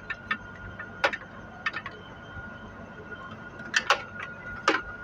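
Hand tools clinking and tapping on metal, a few short sharp clicks in small clusters, while a car AC compressor's pipe fittings are bolted up, over a faint steady high whine.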